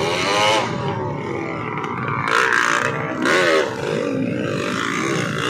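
Dirt bike engine revving hard in repeated surges, its pitch climbing and dropping with the throttle as the bike is ridden through deep mud.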